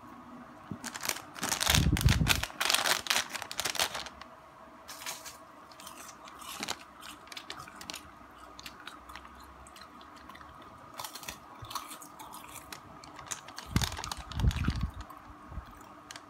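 Crispy seaweed snack sheet crackling and crunching as it is bent and broken apart, in two dense bursts with scattered small crackles between them.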